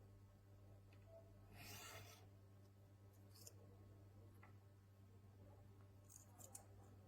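Near silence: a low steady hum with a few faint, brief rustling sounds.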